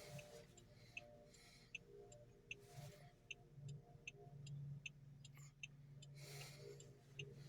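Near silence: a faint low hum with a steady light ticking, about two ticks a second.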